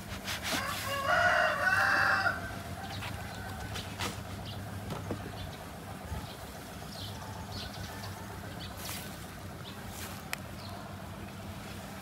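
A rooster crows once, about a second in, a single call lasting about a second and a half. Scattered light clicks and rustles of cardboard packaging being handled follow.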